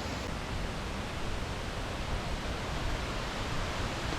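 Steady rushing of falling water, an even hiss and rumble that holds without a break.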